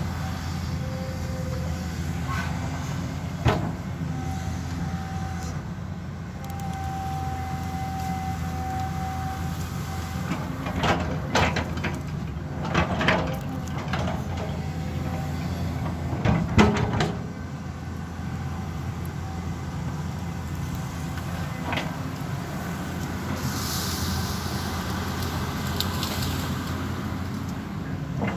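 Caterpillar 320D2 hydraulic excavator working: its diesel engine runs steadily under load while the steel bucket scrapes and knocks against soil and brush, with a cluster of sharp clanks around the middle. A higher steady whine sits over the engine for a few seconds about four seconds in, and a hiss comes near the end.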